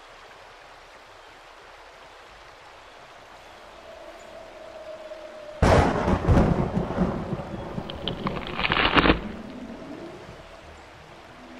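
A thunderclap sound effect: a sudden loud crack that rumbles for about three and a half seconds and then cuts off abruptly. It comes after a stretch of faint steady hiss.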